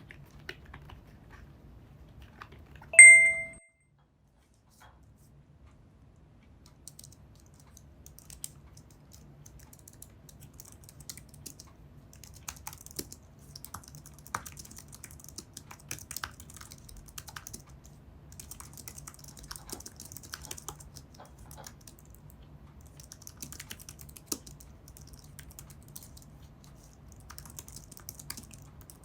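Typing on an Apple Magic Keyboard's scissor-switch keys: a run of light, quick key clicks. About three seconds in, a single bright ding sounds briefly, the loudest thing here, and the sound drops out for a moment before the typing resumes.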